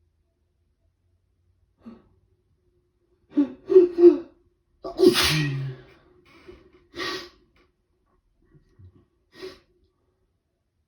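A person with a head cold sneezing in a rapid fit. Three quick sharp bursts come about three and a half seconds in, the loudest sneeze follows at about five seconds, and further sneezes come at about seven seconds and near the end.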